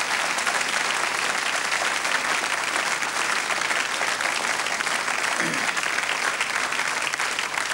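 Audience applauding steadily, a dense crowd of hands clapping.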